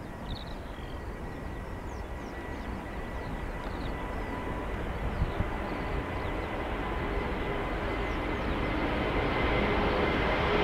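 Airbus A330-900neo's Rolls-Royce Trent 7000 jet engines at takeoff power during departure: a steady jet noise with a faint constant whine, growing steadily louder as the airliner approaches.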